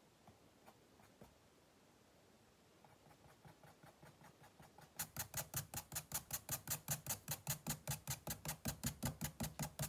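A white drawing pencil on brown paper: a few faint taps and short strokes, then quick back-and-forth scratching that grows clearly louder about five seconds in, an even rhythm of about six strokes a second as the hedgehog's spines are hatched in.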